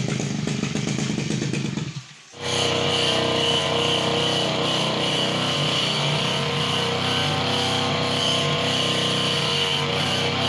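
Brush cutter's small petrol engine running. The sound drops out briefly about two seconds in, then the engine runs steadily at an even speed.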